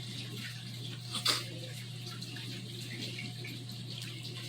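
Steady low hum and hiss of background noise, with faint scratchy sounds and one short sharp knock about a second in.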